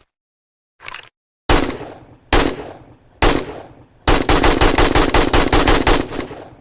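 AK-47 rifle gunfire: a brief quieter clack about a second in, then three single shots a little under a second apart, each trailing off, then a full-automatic burst of about two seconds at roughly ten rounds a second that stops abruptly.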